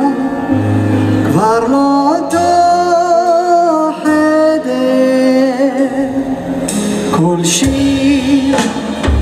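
Live band music: a man singing into a microphone over a Roland stage piano and an upright double bass, the voice sliding between held notes above low bass notes.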